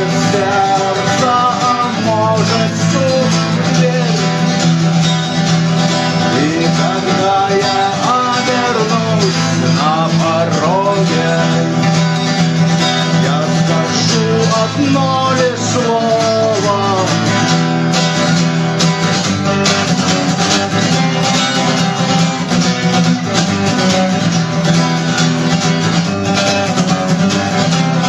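Acoustic guitar playing an instrumental passage: chords strummed in a steady rhythm, with a melody line above them that bends and slides in pitch.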